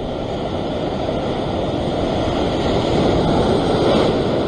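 Sea surf surging and breaking against a rock ledge, a steady rush of water that swells to its loudest about three to four seconds in.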